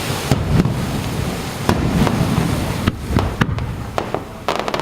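Fireworks bursting over the sea: a series of sharp bangs with deep rumbling echoes, ending in a quick run of crackling reports.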